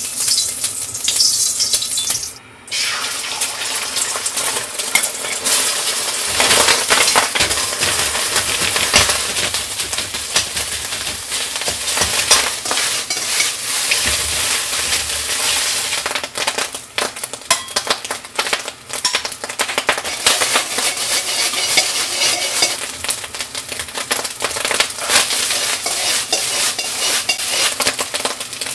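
Fried rice sizzling hard in lard in a hot wok, stirred and tossed with a ladle that scrapes and clacks against the pan over and over.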